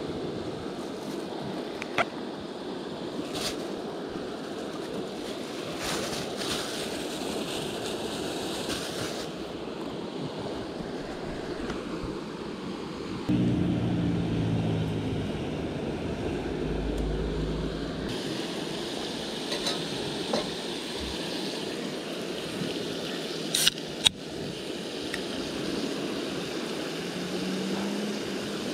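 A river flowing steadily, with a few sharp clicks scattered through; for about five seconds around the middle a low hum rises over it and then stops.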